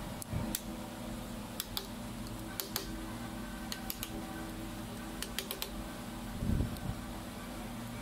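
Light metallic clicks and taps of a steel rod worked inside the hub of a car AC compressor's clutch pulley, over a steady hum, with one duller knock about six and a half seconds in.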